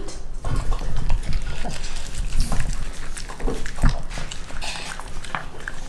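Dog eating from a bowl right at the microphone: wet, sloppy chewing and lapping with many small irregular clicks.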